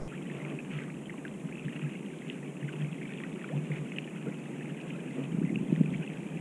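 Water gently lapping and trickling against a plastic sit-on-top kayak's hull, a steady soft wash with small ticks, swelling into a few slightly louder sloshes about five seconds in.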